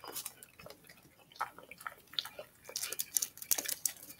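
A dog chewing and licking cake off a paper wrapper: irregular wet smacks and clicks, coming thickest about three seconds in.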